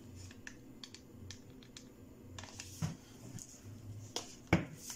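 Light scattered clicks and rustling from hands handling and rolling fabric, with one sharper knock about four and a half seconds in.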